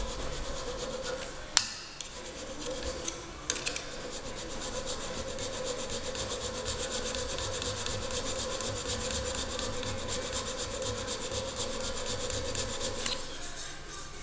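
Mill file scraping steadily over a silicon bronze weld bead, taking the excess filler down. There is a sharp click about one and a half seconds in.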